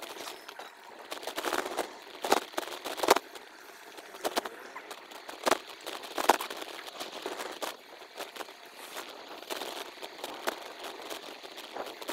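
Sped-up bicycle-ride sound: a hiss broken by a fast, irregular patter of sharp clicks and crackles from the moving bike and its camera, with nothing low in pitch.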